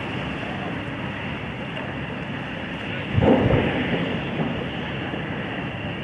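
Steady wind rushing over the microphone beside choppy open water, with a louder low burst about three seconds in.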